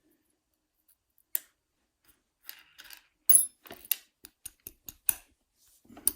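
Small metal clicks and taps from handling the parts of a euro cylinder lock while loading its pin chambers, one louder click among a quick run of light clicks, several a second.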